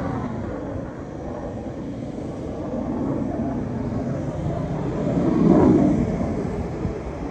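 Aircraft engine rumble, with a louder swell about five and a half seconds in.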